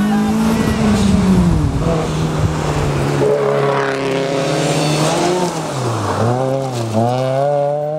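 Rally car engines at full throttle on gravel stages. The engine note climbs and falls with the revs, and dips down and back up twice near the end as the driver shifts or lifts, over a hiss of tyre and gravel noise.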